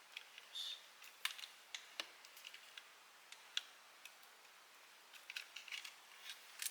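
Scattered light clicks and taps of a plastic battery charger and battery pack being handled, with a brief rustle about half a second in.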